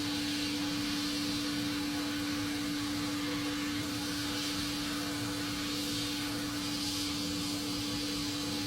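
Electric power tool motor running steadily at constant speed, a steady hum over a broad hiss, starting abruptly.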